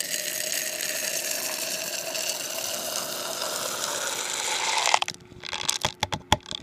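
Aroma beads poured from a cup into a bottle: a steady, dense rattle of many small beads that stops abruptly about five seconds in, followed by a few separate clicks of single beads.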